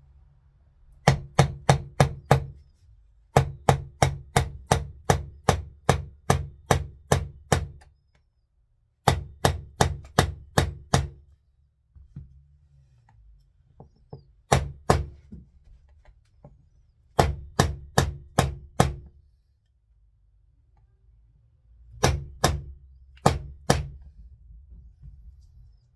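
Brass-headed hammer tapping a punch to drift the rear sight of a Ruger Mark IV Lite out of its dovetail: six runs of sharp taps, about four a second, with short pauses between runs.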